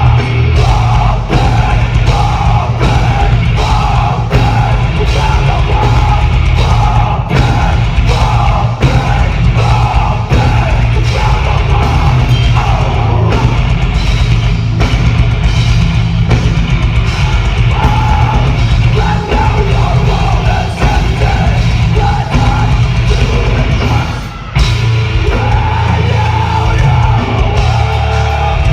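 Live metalcore band playing loud, with distorted guitars, a drum kit and vocals. About 24 seconds in there is a brief stop before the full band crashes back in.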